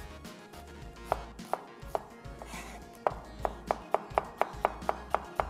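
Kitchen knife slicing an onion on a cutting board: a run of sharp chops, a few at first, then about three to four a second. Soft background music plays underneath.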